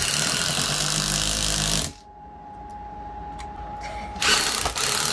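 Ryobi cordless driver running in two bursts, driving a screw up into an overhead wooden furring strip. The first burst stops about two seconds in, and the second starts just after four seconds with a brief stutter.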